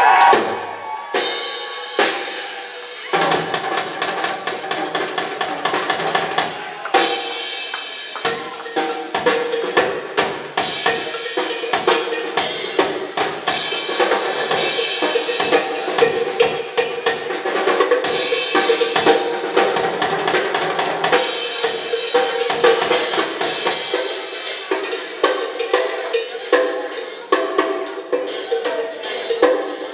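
Rock drum kit played solo live and loud: fast, dense hits and fills across the drums and cymbals.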